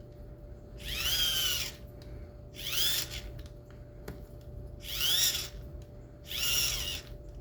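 Microwave turntable motor spun by hand as a generator, its small geared rotor giving a high whine that rises and falls in pitch with each twist, four times with short pauses between.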